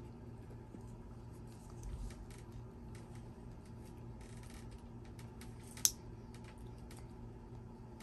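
Small hand scissors snipping at plastic packaging, with faint scattered clicks and rustles and one sharp click about six seconds in.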